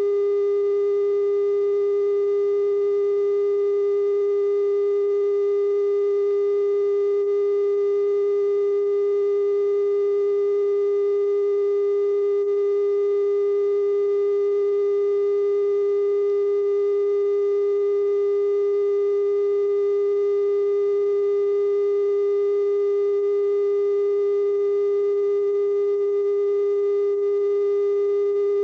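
A steady 420 Hz test tone, the station's line-up tone that accompanies color bars after sign-off, held unbroken at one pitch with faint overtones above it.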